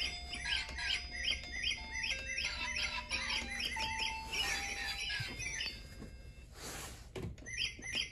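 Chirpy electronic music: short high bird-like chirps repeating several times a second over held tones. There is a brief rushing noise about seven seconds in.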